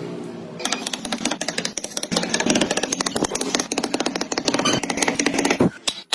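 A woodworking tool working wood with a fast, rattling clatter of rapid clicks. It starts about half a second in and cuts off sharply near the end.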